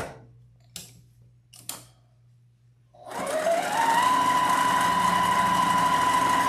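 Electric sewing machine stitching felt: it stops, two faint clicks follow, then about three seconds in it starts again, speeding up over about a second to a fast, steady run.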